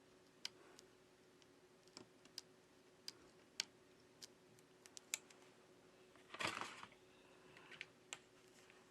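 Faint scattered light clicks and taps of small tools and parts as a smartphone is reassembled, with a brief scrape about six and a half seconds in.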